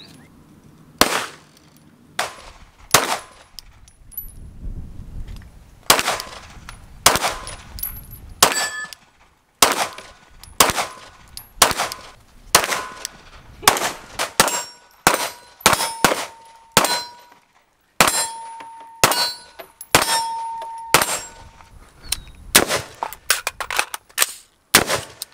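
Single gunshots from a pistol and an AR-15-style rifle, fired one at a time at uneven intervals, about thirty in all. In the second half several shots are followed by a brief metallic ring.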